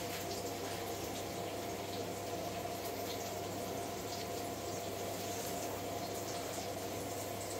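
Kitchen tap running steadily, a continuous even rush of water, over a low steady hum.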